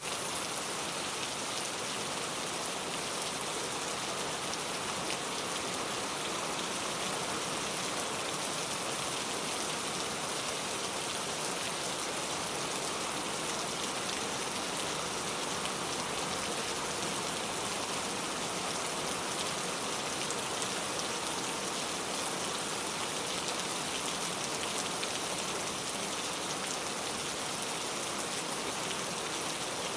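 Steady rain falling, a dense, even patter of raindrops on a surface.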